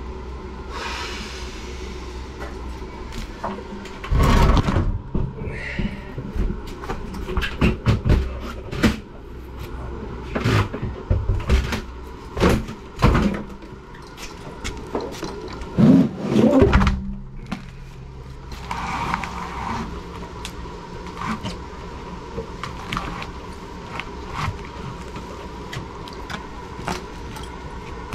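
Irregular thumps, knocks and scrapes of a 50-gallon tank water heater being handled into place, with the loudest bangs clustered in the middle, over a steady low hum.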